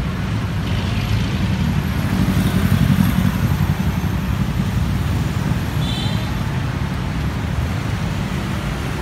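Street traffic: a steady low rumble of cars in the road, swelling a little about two to three seconds in. A brief high-pitched tone sounds about six seconds in.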